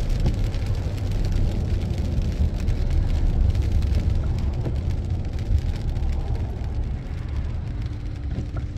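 Steady road and engine noise inside a moving vehicle's cabin, with a windshield wiper sweeping across the glass at the start. The noise eases off a little near the end.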